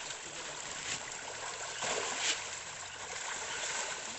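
Many fish thrashing and splashing at the surface of a pond, a continuous churning of water with one sharper splash about two seconds in.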